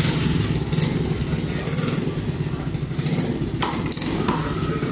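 A cleaver knocking sharply on a wooden chopping block a few times as fish is cut, over a steady low engine-like rumble.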